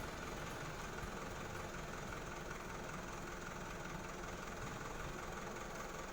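An engine idling steadily, at a low level.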